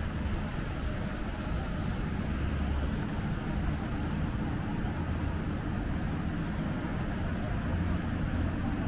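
Steady low rumble of city street traffic, engines running with no single vehicle standing out.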